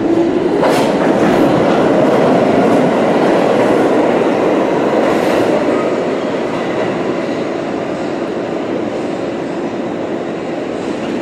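New York City subway train, an R46, running out of the station alongside the platform. Its wheels click over rail joints a few times at the start, and its steady rumble slowly fades.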